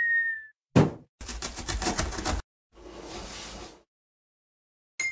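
Cartoon intro sound effects: a sharp thump about a second in, a rattling noise lasting about a second, a softer whoosh, then a bright ringing ding at the end.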